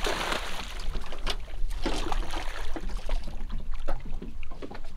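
Boat on the water: a steady low rumble with irregular splashes and knocks, and a short rush of water at the start.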